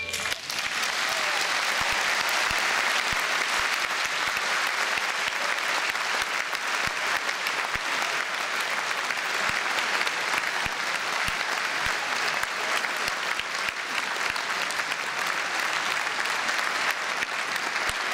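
A large audience applauding steadily in a concert hall, the clapping taking over just as the last flute note stops.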